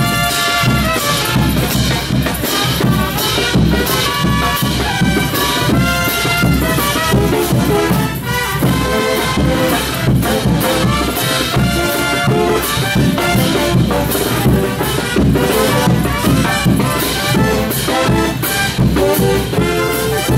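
Brass band playing a dance tune, trumpets and other horns over a steady beat of drums and bass.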